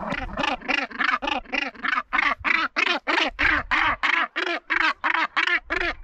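Northern gannets calling: a rapid, steady run of harsh, grating calls, about four a second.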